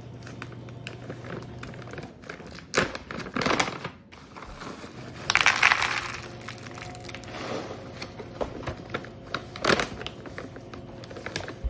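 Dried edamame beans clattering into a plastic tackle-box compartment, with clicks and knocks of the plastic box and snack bag. The loudest stretch of rattling comes about five seconds in.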